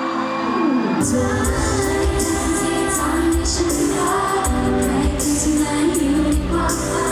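Thai pop song sung by female vocalists into microphones over a full backing track with a steady beat. The bass and drums are missing for about the first second, then come back in under the singing.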